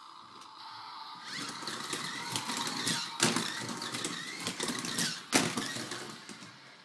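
Shake-powered toy race car whirring and rattling along plastic track, with two sharp knocks, about three and five seconds in.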